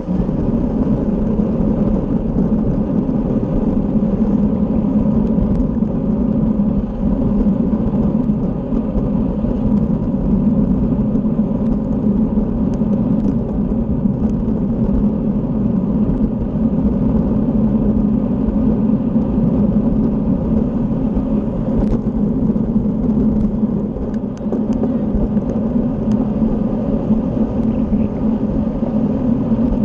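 Steady rumble of wind on the microphone and tyre noise from a road bike being ridden at speed.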